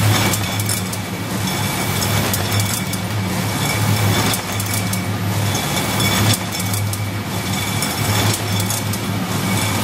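WA Flex 514 case-packing machine running: a steady low hum of its drives with chains and mechanism clattering, and short knocks every second or so.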